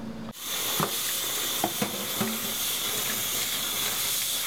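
Kitchen tap running into a steel pot of cut quince pieces while hands rub and rinse them, with a few light knocks of fruit against the pot in the first two seconds.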